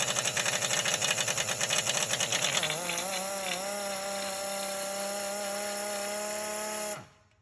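Rebuilt power steering pump being run in a test: a fast, rattly pulsing at first that settles after a couple of seconds into a steady whine, wavering briefly in pitch, then cutting off suddenly near the end.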